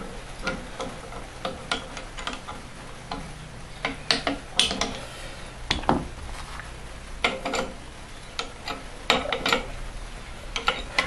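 Irregular small metal clicks and taps as hands adjust and load a steel rod-and-spring-balance rig, over a faint steady hum.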